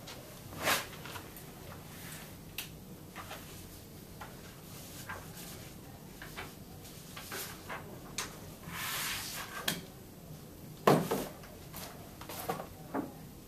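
Scattered knocks, clicks and rustles of people handling things in a small room. There is a rustle lasting about a second past the middle, and the loudest knock comes about eleven seconds in.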